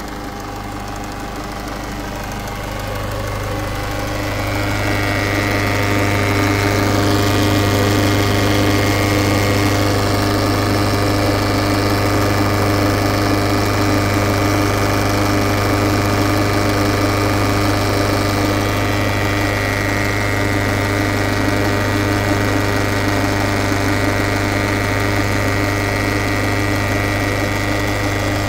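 Peugeot 508 SW's 2.0 HDi four-cylinder diesel running steadily, a constant hum with a whine that comes and goes, carrying a noise the owner finds weird and cannot identify. It grows louder over the first few seconds, then holds.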